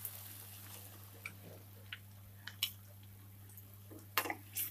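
Wooden spatula stirring cornflour slurry into a thick sauce in a nonstick pan: a few soft clicks and squelches, the loudest about four seconds in, over a faint steady hum.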